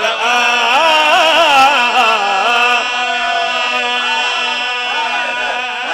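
A man's voice chanting one long drawn-out note of a devotional qasida. For about the first three seconds the note wavers up and down in ornaments, then it is held steady.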